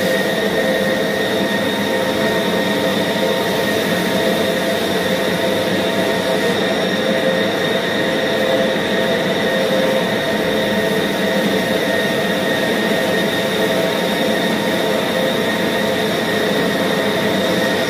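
Electric meat band saw running steadily while its blade cuts through a block of pork: an even mechanical whine with several steady tones over a hiss, unchanging throughout.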